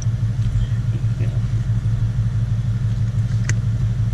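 Car engine idling steadily, likely the 2017 Mustang's 5.0 V8, with a light click about three and a half seconds in.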